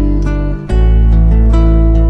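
Background music: strummed acoustic guitar chords, changing chord about two-thirds of a second in.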